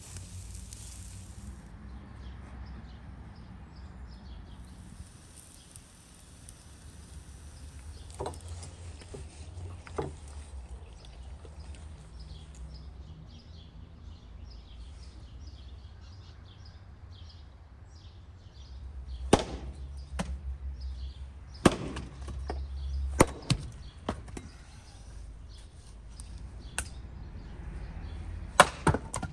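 Axe splitting firewood on a chopping block: sharp single strikes, about eight of them a second or two apart, in the second half. Before them there are only faint hiss and light ticking.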